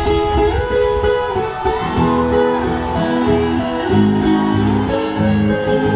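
Live acoustic sertanejo music with plucked ten-string viola caipira and guitars playing an instrumental passage.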